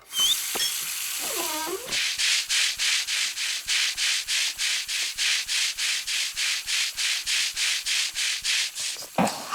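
Rhythmic back-and-forth scrubbing strokes, like a brush rubbing, about three to four a second for around seven seconds. Before them come a steady hiss and a short pitched voice-like sound.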